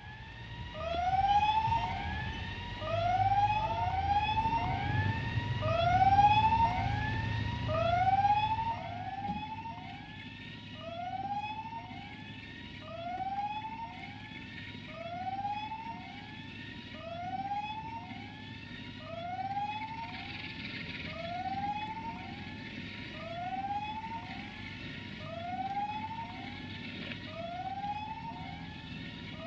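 Electronic railway warning signal: a short rising chirp repeating about once a second, crowded together and loudest in the first several seconds. A low rumble runs underneath, strongest in the first eight seconds.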